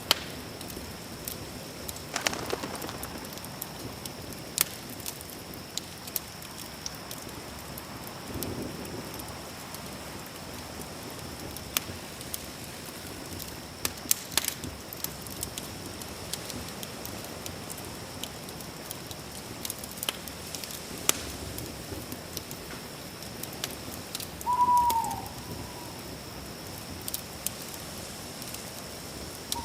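Campfire crackling, with irregular sharp pops over a steady hiss, and a steady high night-insect note behind it. A single short bird call with a falling end sounds about three-quarters of the way through.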